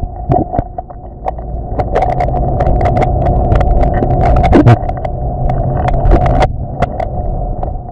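Underwater swimming-pool ambience picked up by a submerged camera: a steady hum over a low rumble, with many small scattered clicks and pops.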